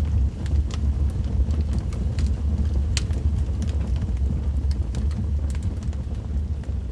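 Wood fire crackling in a fireplace: a steady low rumble of the flames with scattered sharp pops and snaps, one louder pop about three seconds in.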